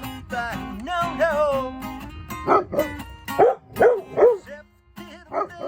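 Puppies yipping and barking over acoustic guitar playing: first a wavering, drawn-out whine, then from about halfway through a run of short, loud barks.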